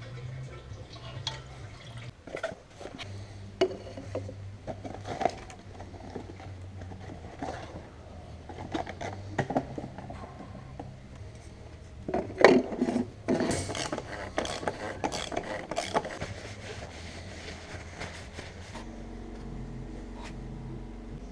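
Irregular clinks and clatters of hard objects being handled, loudest about twelve to thirteen seconds in. Near the end a steady hum with several even tones sets in.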